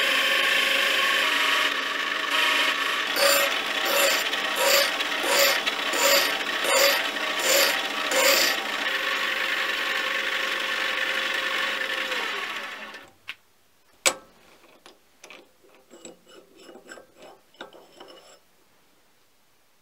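Mini lathe running, its spindle turning a metal part while it is finished with an abrasive pad, with a regular rasping pulse about every 0.7 s for several seconds. The lathe winds down at about 12.5 s. A single sharp click follows at about 14 s, the loudest sound here, then a few small handling clicks.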